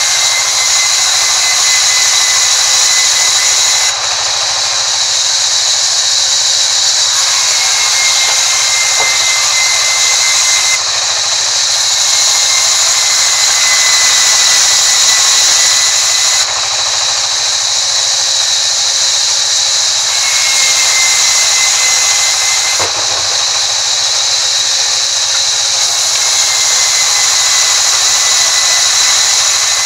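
Sawmill band saw running and ripping a thin board off a wooden timber: a loud, steady, high-pitched saw noise with a faint whistle that comes and goes every few seconds.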